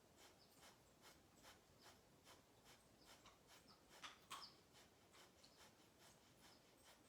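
Faint, rhythmic Kapalabhati breathing: short, forceful exhales through the nose, about two and a half a second, each pumped out by a sharp pull of the belly. Two of the puffs, about four seconds in, are a little louder.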